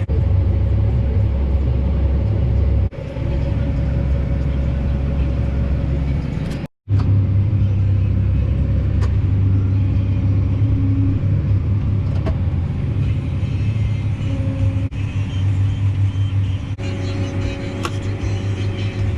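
Steady low drone of a farm machine's diesel engine running at harvest. It is broken by several abrupt cuts, one a brief drop to silence about seven seconds in.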